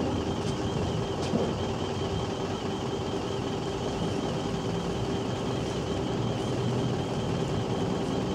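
Turbine engines of a parked MD 902 Explorer doctor helicopter running at ground idle: a steady whine, with one low tone and one high tone over a rushing noise.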